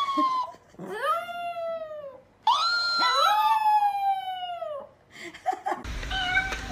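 Chihuahua howling: three long, high howls, each sliding down in pitch, with short pauses between them. A few short clicks follow near the end.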